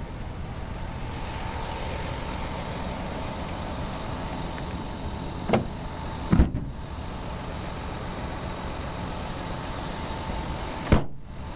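Pickup truck engine idling steadily, with three sharp knocks: two close together about halfway through and one near the end.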